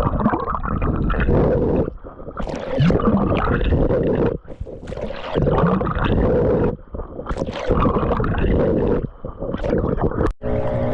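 Water splashing and gurgling around a camera carried by a swimmer, in surges every second or two with each stroke, with bubbly gurgles as the camera dips under.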